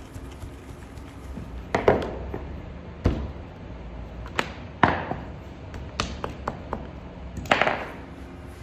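Irregular sharp knocks and slaps, about six loud ones with smaller taps between, some trailing off in a short falling swish: a baker pressing and shaping Uzbek flatbread dough with a wooden stamp and his hand on a round board.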